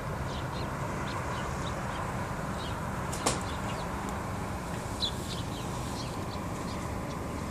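Small birds chirping in short, scattered calls over a steady background hum, with one sharp click about three seconds in.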